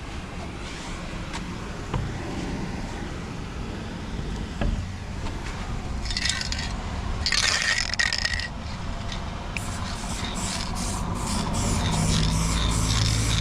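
Aerosol lacquer spray can hissing in two short bursts, amid scraping handling noise, followed by a rapid run of ticks.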